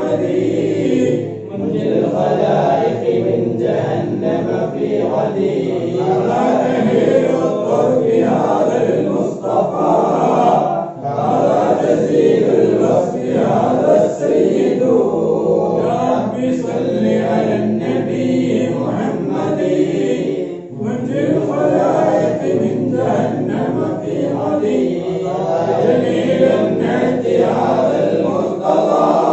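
A group of men chanting a Mawlid recitation in Arabic in unison, without instruments, with brief breaks between phrases.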